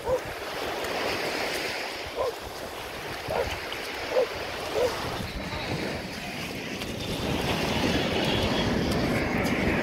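Wind buffeting the microphone over the wash of surf, growing louder after about seven seconds. Five short high-pitched calls sound in the first five seconds.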